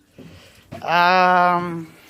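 A man's voice holding one steady vocal note for about a second, without forming words.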